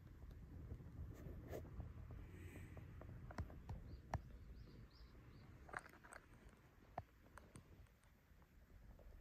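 Near silence: quiet room tone with a few faint, soft clicks and rustles.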